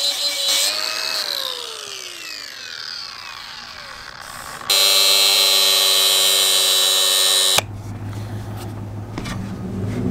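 Cordless angle grinder with a sanding disc working a teak rail. It is then released and spins down, its whine falling in pitch over about three seconds. Midway a louder steady whine starts and cuts off abruptly about three seconds later, the grinder run again free.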